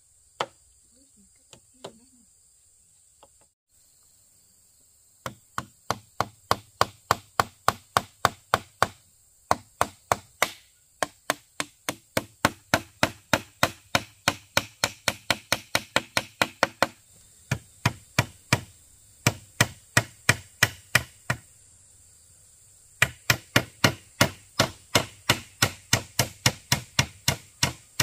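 A few light knocks, then from about five seconds in, a blade chopping bamboo in fast runs of sharp strokes, about two to three a second, broken by short pauses.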